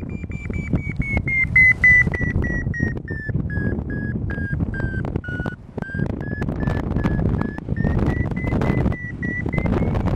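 Paragliding variometer beeping in a thermal: a string of short beeps whose pitch drops through the first half and climbs again toward the end, the pitch following the climb rate. Steady wind buffeting the microphone underneath.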